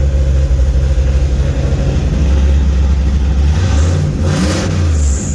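Car engine running with a loud, low exhaust note. This is the first test of newly wired electric exhaust cutouts. The note changes about three and a half seconds in, with two short rushes of hiss soon after.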